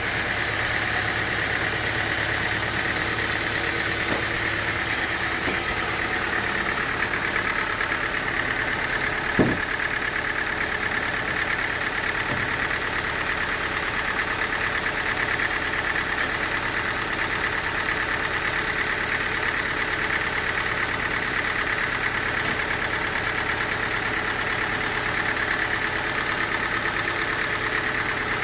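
Sawmill machinery running steadily, with one sharp knock about nine and a half seconds in.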